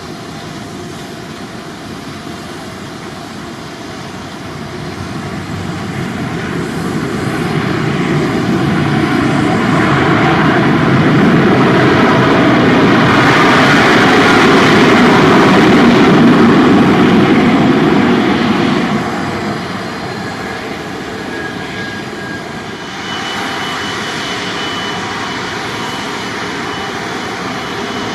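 Jet airliner passing on the runway: its engine noise swells over several seconds to a loud peak midway, drops off fairly quickly, then leaves a steady lower rumble.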